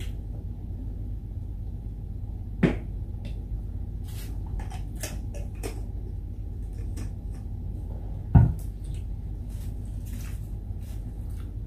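Handling of a plastic squeeze bottle of salad dressing over a plate: two dull knocks about six seconds apart, the second the louder, with faint small clicks between, over a steady low hum.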